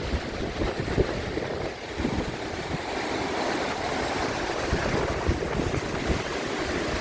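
Strong wind buffeting the microphone over the steady wash of ocean surf, with irregular low rumbling gusts.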